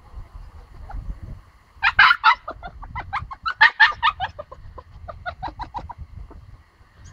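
A chicken clucking: a rapid run of short, sharp calls, loudest about two seconds in, that dies away about six seconds in.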